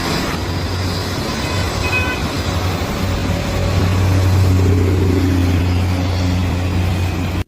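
Jet engines of an Airbus A330 airliner running with a steady, loud low rumble, swelling slightly about four seconds in.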